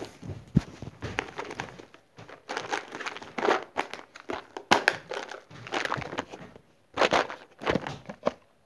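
Rustling, crinkling and knocking as a clear plastic box of doll clothes is handled and the clothes are pulled out, in irregular bursts with a few sharp clicks.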